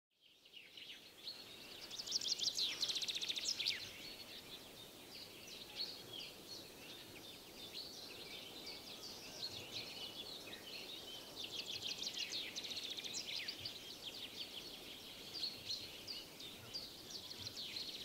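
Several songbirds singing at once in a spring chorus, with many quick chirps and rapid trills over a light outdoor hiss. The chorus fades in from silence at the start and swells in two denser bursts of trilling, one about two seconds in and another about twelve seconds in.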